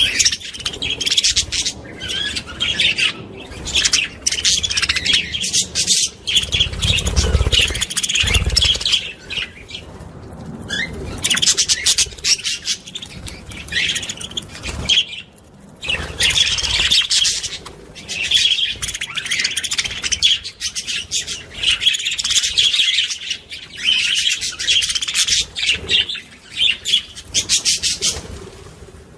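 Small songbird singing in long runs of rapid, high chirping trills, with short pauses between phrases and a few low thuds about a third of the way through.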